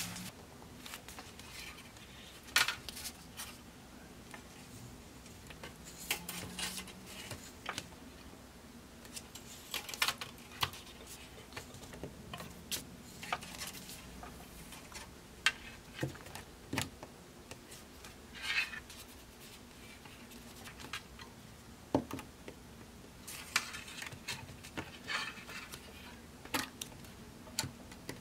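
Copper wire being bent and shaped with small pliers on a desk: scattered light metallic clicks and taps, irregular and spaced a second or more apart, as the plier jaws grip the wire and the wire knocks against the tabletop.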